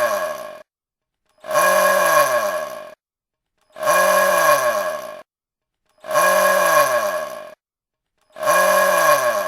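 A small drill motor is pressed against a metal plate, which rings with steady metallic tones while the motor runs. It runs in short bursts of about a second and a half, repeated roughly every two seconds with silence between. The first burst ends just after the start, and four more follow. In each burst the motor's pitch falls as it winds down.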